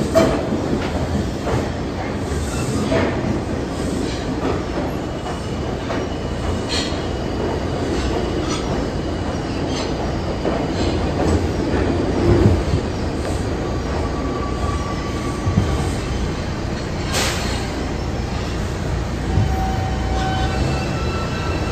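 R142 subway train running on steel rails: a steady rumble with scattered clicks from the track. Thin, high wheel squeals come and go in the second half, with a sharp clack about seventeen seconds in.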